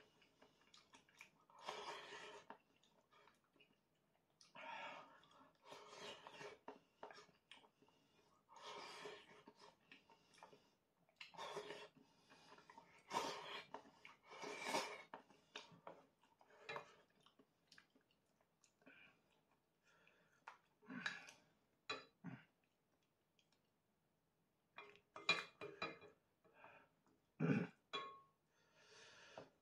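A person eating ramen from a ceramic bowl: repeated short slurps of noodles and soup with chewing in between. Near the end, a wooden ladle knocks and clinks against the bowl and clay pot several times.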